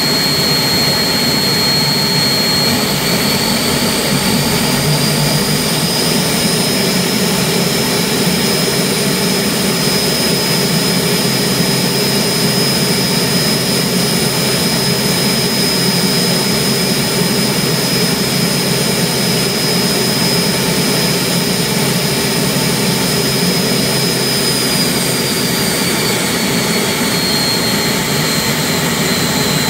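Turbomeca gas turbine engine running on a ground-run test stand: a loud steady rush with a high turbine whine. The whine rises in pitch a few seconds in, holds steady, then eases back down near the end.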